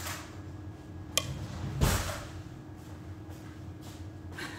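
Kitchen drawer and spoon being handled: a sharp click about a second in, then a louder knock just under a second later, over a steady low hum.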